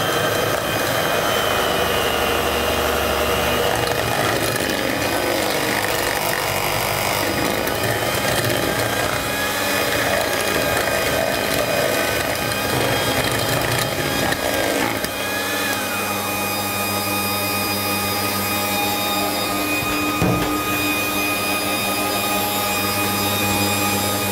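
Bosch stand mixer running steadily, whipping cream that is thickening toward stiff. A second motor's higher whine runs alongside and falls away about fifteen seconds in.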